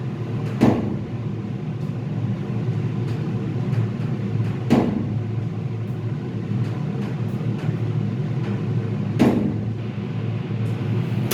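Elevator car running, a steady low mechanical hum, with a sharp click about every four and a half seconds, three times.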